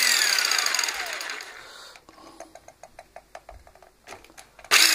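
The 600-watt motor of a Fiolent PMZ-600 jigsaw is switched on in short bursts with the gearbox open, running the newly replaced plunger and frame. Each burst comes on at once, then winds down over about two seconds with a whine falling in pitch. Light clicks come in between, and the second burst starts near the end. The test run shows the reciprocating mechanism now works properly.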